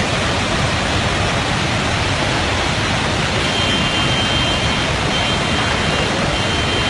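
Steady, loud rushing noise of a torrent of mud and water from a burst dam.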